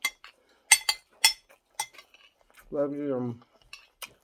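Cutlery clinking and scraping against a plate during a meal: several sharp clinks in the first two seconds and one more near the end.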